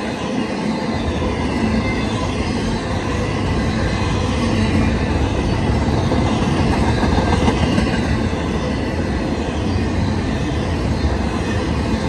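BNSF intermodal freight train's flatcars loaded with truck trailers rolling past at speed: a steady rumble and clatter of steel wheels on the rails as the train gathers speed over the summit.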